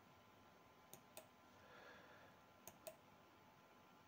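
Four computer mouse clicks in two quick pairs, about a second and a half apart, over near silence.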